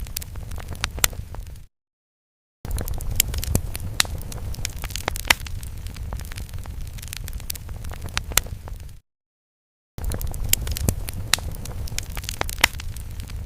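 Fire sound effect: a steady low rumble with frequent sharp crackles and pops. It drops out to total silence twice, for about a second each, near the start and about two-thirds of the way through.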